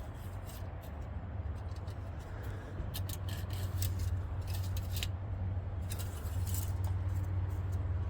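Light metallic scrapes and clicks as the engine oil dipstick is pulled from its tube, wiped and handled, in two bursts, over a steady low rumble.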